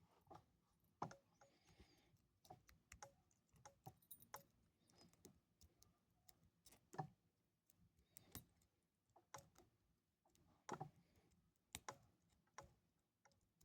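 Lock pick and tension wrench working inside a Brinks padlock: faint, irregular metallic clicks and ticks, one or two a second, as the pins are probed.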